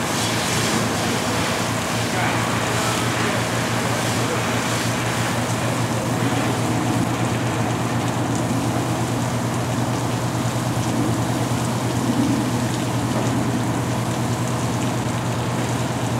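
Steady rushing hiss of water from a fire hose, over the constant drone of a diesel truck engine running.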